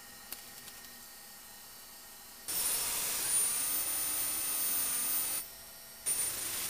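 A steady machine whine over a hiss starts suddenly about two and a half seconds in, cuts out for under a second, then starts again near the end.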